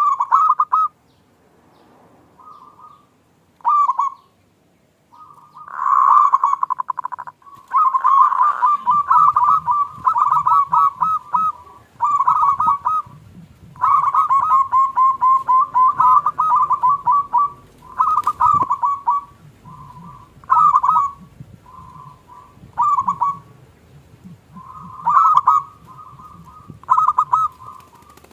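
Zebra doves (perkutut) cooing: phrase after phrase of quick, rolling coos, some short and some running on for several seconds.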